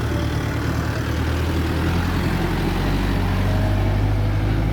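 A vehicle engine running steadily close by: a low, even hum that grows a little louder about two seconds in.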